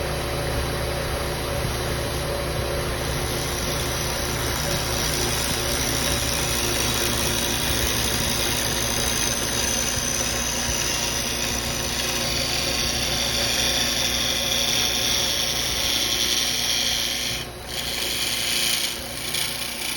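Wood lathe running while a turning tool takes a push cut on a spinning red oak blank: a steady motor hum under the hiss of the tool shaving the wood. The hiss grows brighter through the middle and breaks off briefly twice near the end.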